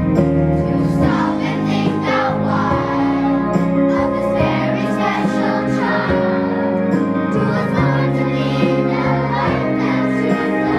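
Music with a group of children singing together as a choir over instrumental accompaniment.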